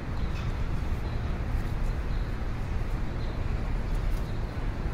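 Steady outdoor background noise, mostly a low rumble, picked up by a moving handheld camera's microphone, with a few faint light knocks.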